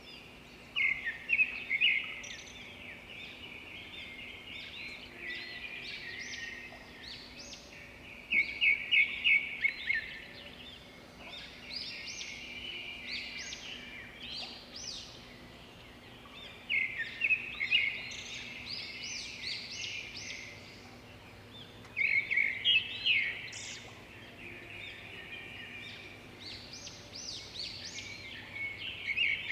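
Birds chirping in a morning chorus: bursts of rapid, high chirps recur about every five or six seconds, with softer twittering between them.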